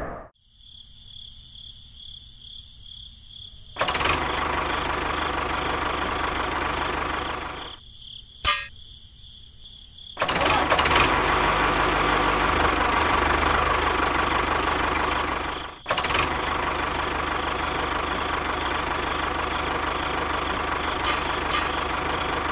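Tractor engine running in stretches, the sound typical of a tractor pulling a loaded trolley. It comes in about four seconds in, breaks off twice briefly (a single click in the first gap), then runs on steadily. A faint high steady whine is heard before the engine comes in.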